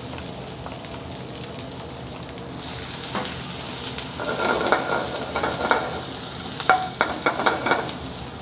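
Chopped onion sizzling in hot oil in a skillet. From about halfway through, a utensil scrapes and knocks against the pan in a run of strokes as the onion is stirred.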